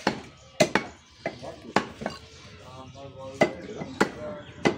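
A butcher's cleaver chopping through beef onto a wooden log chopping block: about seven sharp, irregularly spaced strokes. Voices talk in the background.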